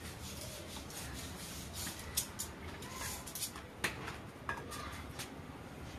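Coconut shell pieces being handled over a bowl: a few light clicks and knocks, about five sharp ones between two and five seconds in, over a low steady background.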